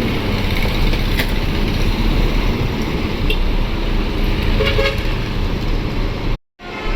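Steady engine rumble of buses and road traffic, with a short horn toot about two-thirds of the way through. The sound cuts out abruptly near the end and resumes with steady held tones.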